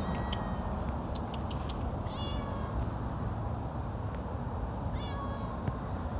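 Cat meowing in short, high-pitched calls, three or so, each falling in pitch, over a steady low background rumble.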